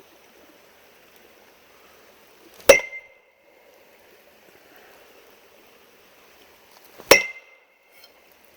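Two hard wood knocks, an aluminum bat struck against a tree trunk about four and a half seconds apart, each with a short metallic ring.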